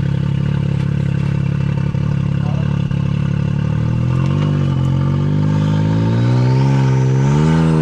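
Can-Am Maverick X3's turbocharged three-cylinder engine pulling the side-by-side slowly over tree roots. The engine note holds steady for the first few seconds, then rises and wavers from about four seconds in as the throttle is worked, climbing highest near the end.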